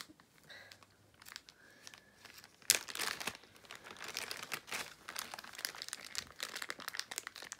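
Clear plastic bag crinkling as a doll is pulled out of it: quiet at first, then a sharp crackle a little under three seconds in and quick, dense rustling after.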